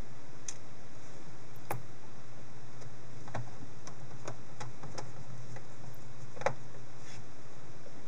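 Scattered light clicks and ticks of a screwdriver and small screws against a laptop's metal drive bracket and plastic case, a few irregular ticks over a steady low hum.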